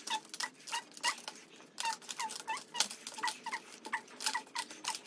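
Cooked river snails being sucked out of their shells: a quick, uneven run of short wet slurps and squeaky sucks, several a second.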